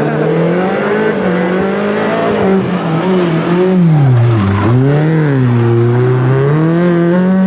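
Rally car engine running hard at high revs, its pitch rising and falling through the gears and dipping sharply about halfway as it lifts off, then climbing again as it accelerates.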